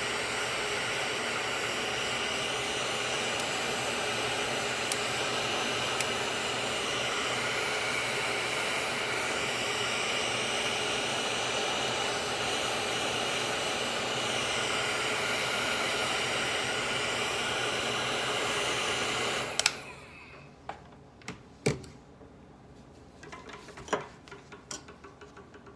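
Heat gun blowing steadily with a whining fan, heating a melted plastic collar on a pressure-washer quick connect; it switches off abruptly about twenty seconds in, followed by a few sharp clicks and taps of tools on the fitting.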